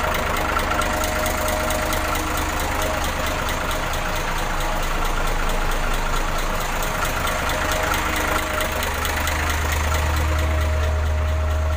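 Hino common-rail diesel truck engine idling steadily on a newly fitted supply pump and injectors. Its low rumble grows louder about nine seconds in.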